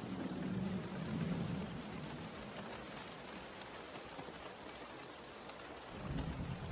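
Steady rain falling, with a low rumble of thunder that dies away in the first couple of seconds and rolls in again near the end.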